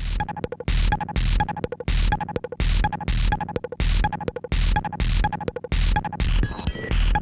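Electronic music with a distorted, noisy beat hitting about twice a second, and a glitchy burst of noise near the end.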